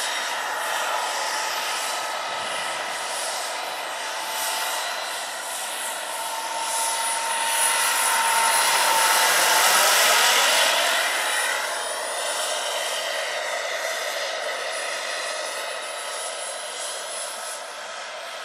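Giant scale Gazelle model helicopter in flight: its Jakadofsky Pro 6000 model gas turbine gives a steady high whine over the rush of the rotors. The sound grows loudest as the helicopter passes overhead about halfway through, and its pitch falls as it moves away.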